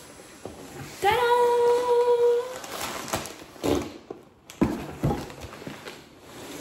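A woman singing a drawn-out "ta-da!", her voice sliding up into a long held note about a second in. It is followed by irregular rustling and a few knocks as snack packets and a tin are lifted out of a cardboard box packed with shredded paper.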